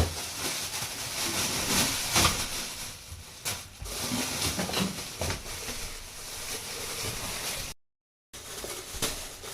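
Steady hiss, like a kitchen stove or fan, with a few sharp knocks and clinks of dishes or containers being handled.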